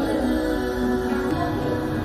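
Background music with long held notes that shift to new notes just past halfway.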